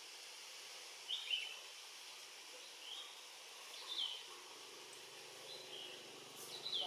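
Forest ambience: short high bird chirps, about five spread through it, over a steady hiss, with a faint low hum coming in about halfway.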